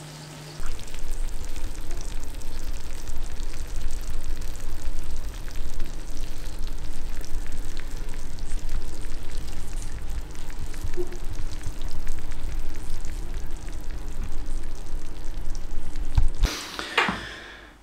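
Cheese-topped casserole in a cast-iron skillet sizzling and crackling with fine pops, fresh from the oven. A brief louder noise near the end.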